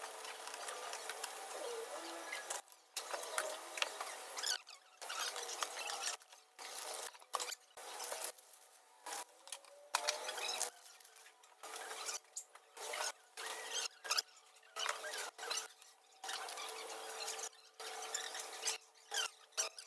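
Light clicks, scrapes and rubbing of computer parts being handled while a desktop PC's motherboard is swapped, over a hiss that keeps cutting in and out.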